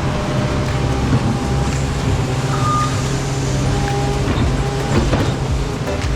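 Skid loader's diesel engine running steadily under work, with scattered clanks from the machine and a couple of brief high tones around the middle.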